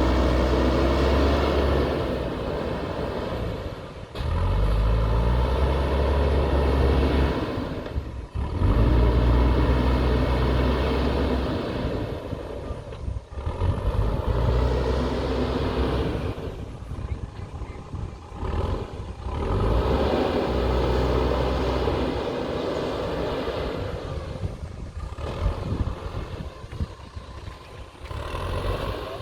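JCB backhoe loader's diesel engine running under load, its pitch and loudness rising and falling as the machine works, with several abrupt breaks in the sound.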